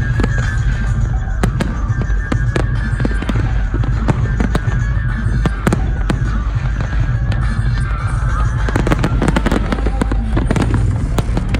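Aerial fireworks display: many shell bursts and crackles in quick succession, over loud music with a heavy, steady bass.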